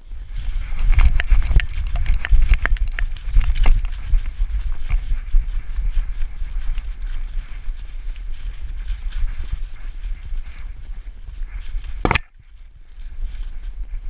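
A dog running through dry fallen leaves, heard from a camera strapped to its back: quick crunching of leaves and paw strikes over a heavy low rumble from the camera being jostled. About twelve seconds in there is one sharp knock and the sound drops for a moment before the running noise picks up again.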